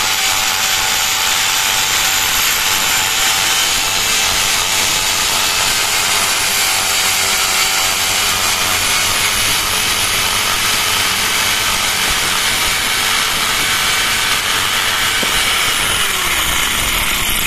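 Two iBell electric drills, a 650 W hammer impact drill and a 400 W drill, running together and boring 6 mm masonry bits into concrete stone: a steady motor whine over the grinding of the bits in the stone. The motors come up to speed at the start, and one winds down near the end.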